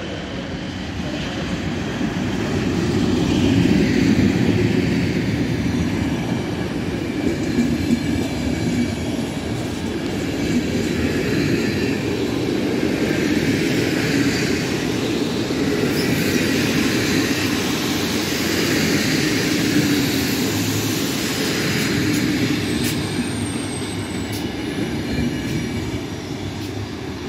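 Locomotive-hauled passenger train rolling past along a station platform: a steady rumble of wheels on rail with a higher hiss that swells and fades as the coaches go by. The noise builds about four seconds in and eases off near the end.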